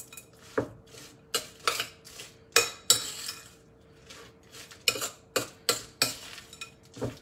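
Metal spoon scraping and clinking against a glass mixing bowl as cookie dough is stirred and folded, in irregular strokes about once or twice a second.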